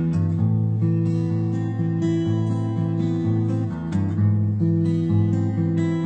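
Background music: strummed acoustic guitar playing chords.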